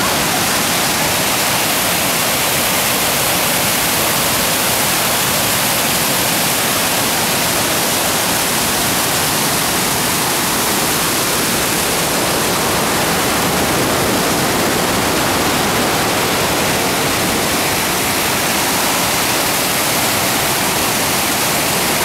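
Düden waterfall and river whitewater churning: a loud, steady rush of water.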